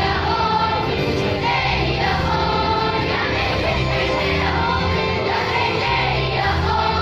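School choir of children and teenagers singing together in harmony.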